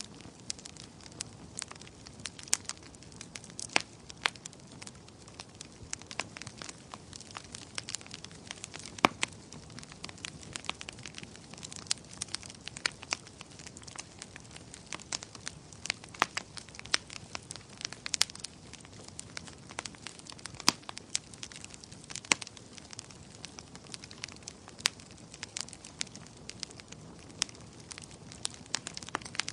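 Bonfire burning, with irregular sharp crackles and pops over a steady low hiss of flames.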